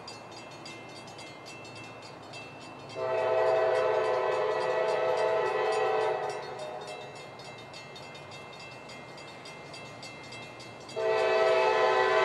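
Air horn of an approaching CSX freight train locomotive, sounding one long blast of about three seconds a few seconds in and starting another near the end, over the faint rumble of the train.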